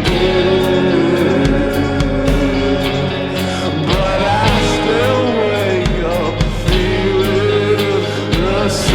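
Rock band music with a steady beat and a wavering, bending lead melody line.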